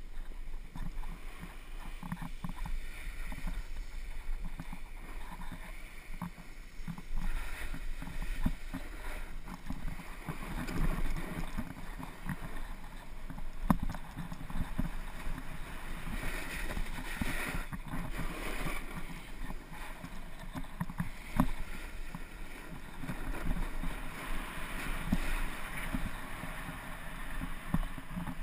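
Skis sliding and scraping over packed snow on a descent, the hiss swelling and fading with each turn, with scattered short knocks and a steady low wind rumble on the body-mounted camera's microphone.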